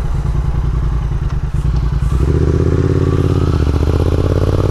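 2016 Triumph Thruxton 1200's 1200 cc parallel-twin engine running under the rider through aftermarket Vance & Hines exhaust pipes. About two seconds in it pulls harder, getting fuller and a little louder, with its pitch rising slowly.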